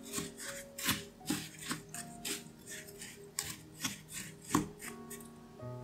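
Wooden spoon scraping and pressing buttery biscuit crumbs against a ceramic bowl: a quick series of gritty strokes, about two to three a second, that stop shortly before the end. Soft background music plays underneath.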